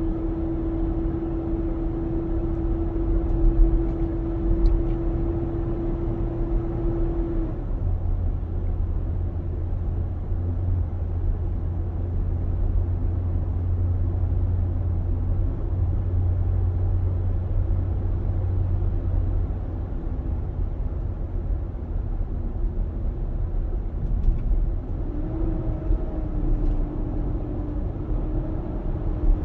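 2021 Nissan Armada's 5.6-litre V8 running with a steady low rumble and a constant whining tone. The whine cuts off suddenly about seven seconds in, a deeper drone holds for about ten seconds after that, and the whine comes back near the end. This is the noise the owner calls a loud engine noise.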